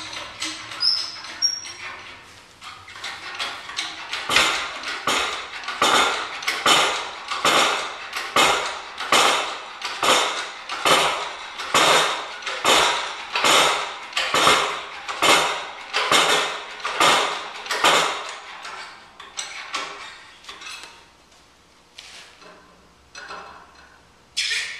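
Hydraulic bottle jack of a 20-ton shop press being pumped by hand, a metallic clank with each handle stroke, about one stroke every 0.8 s, as the press brake bends quarter-inch steel flat bar. The strokes fade out, and a few lighter clinks follow. A sharp metallic clink comes near the end.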